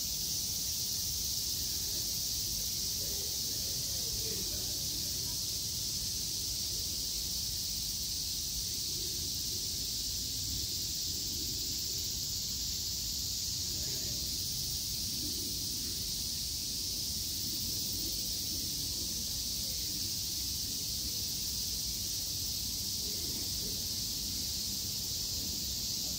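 Cicadas droning in a steady, unbroken high-pitched chorus, over a low, even background rumble.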